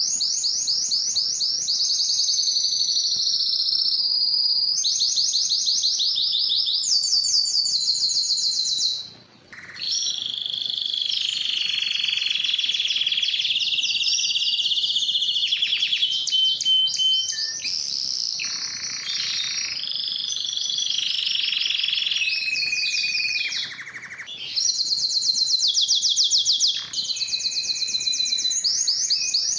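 Spanish timbrado canary singing in long runs of rapid trills, each run changing pitch, with a short break about nine seconds in.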